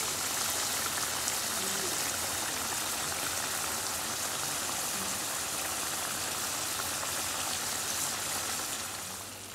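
Chicken curry bubbling and sizzling in a nonstick pan: a steady hiss of spitting, popping gravy that eases off near the end.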